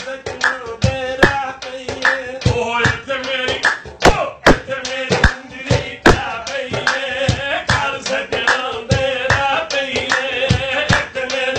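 A man singing a Punjabi folk song in a wavering voice, accompanied by hands drumming on a large metal cooking pot used as a drum, with quick, uneven strikes.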